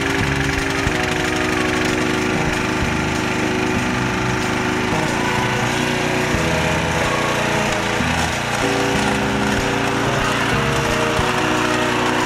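Walk-behind cultivator's small engine running steadily under load while it hills soil up along rows of Japanese long onions, with background music playing over it.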